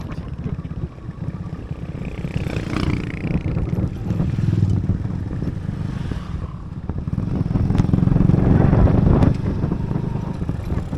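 Motorcycle being ridden along a rough gravel road: engine and road rumble, swelling louder for a second or two late on.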